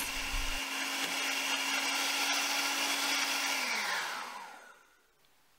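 Electric hand mixer running steadily as its twin beaters cream margarine and sugar. About three and a half seconds in it is switched off, and its pitch falls as the motor winds down to a stop.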